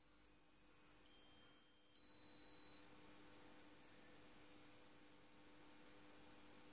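Pure sine test tones from an audio analyzer's frequency sweep, stepping upward in pitch with a new steady tone about every second. Faint at first, they get much louder from about two seconds in, over a faint steady hum.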